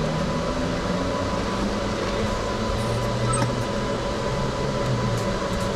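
Electric go-kart driving, heard from onboard: a steady noise with a low motor hum that slowly shifts in pitch.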